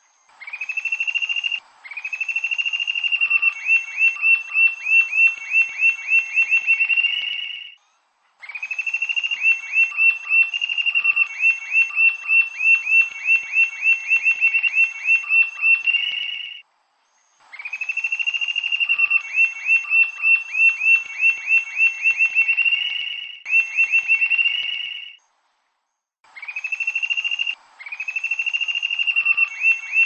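Rufous-tailed jacamar singing: phrases several seconds long, each opening with a long high whistled note and breaking into a fast run of squealing notes. About four phrases follow one another with short pauses between them.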